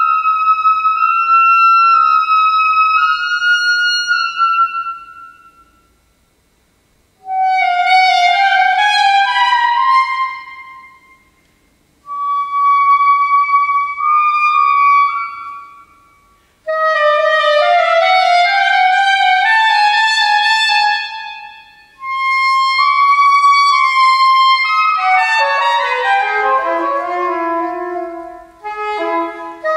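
A solo saxophone playing contemporary classical music: phrases of long high held notes alternating with quick rising runs, and a fast descending run near the end. Each phrase breaks off into a short pause where the notes ring away in a reverberant hall.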